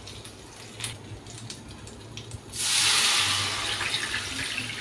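Water poured from a glass bowl into a hot kadai of oil and roasted cumin, chilli, ginger and garlic. It starts with a sudden loud hissing rush about two and a half seconds in that slowly dies down, after faint crackling of the frying tempering.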